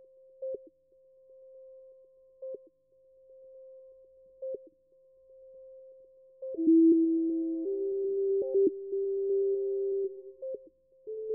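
Minimal electronic background music: a quiet steady sine-like tone with a soft tick every two seconds, joined about six and a half seconds in by louder held synthesizer notes that step between pitches.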